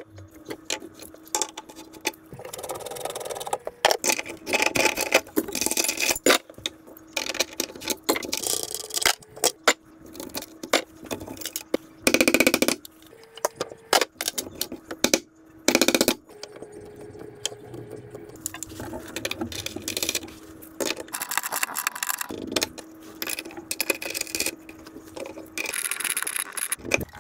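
Rotted chrome sink drain pipes being unscrewed and pulled apart: repeated metallic clinks, rattles and scrapes of slip nuts and pipe sections, with metal pieces clattering into a plastic bucket.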